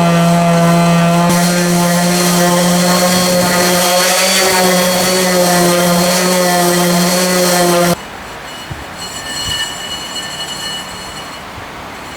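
A power tool's motor running loud and steady at one pitch, with a hiss over it, cutting off abruptly about eight seconds in; fainter steady high whines follow.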